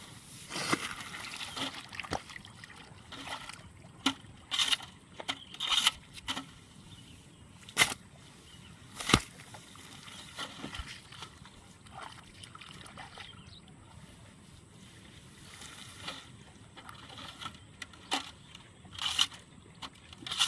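Irregular splashing and sloshing of water and wet mud, with short sharp scrapes, as rice seedling mats are cut and lifted from a flooded nursery bed. The loudest splashes come at about 8 and 9 seconds in.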